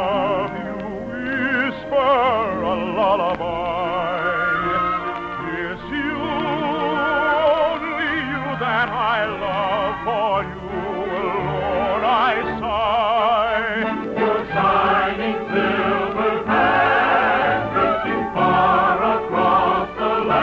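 Operetta singing with wide vibrato over an orchestra, heard through the narrow, muffled sound of an old broadcast recording.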